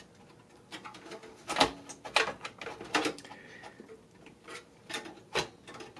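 Hands handling cables and parts inside a desktop PC case: irregular clicks, taps and light rustling of plastic and metal, the sharpest clicks about a second and a half and two seconds in.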